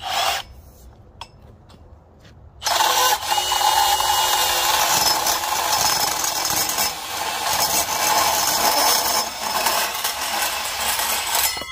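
Milwaukee M18 cordless portable bandsaw cutting steel strut channel: a brief blip of the motor at the start, then the saw runs steadily and loudly through the metal from about two and a half seconds in until just before the end.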